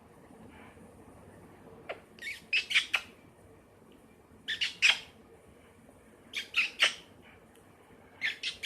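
Pyrrhura conure giving short, harsh squawks in four quick bursts, about two seconds apart.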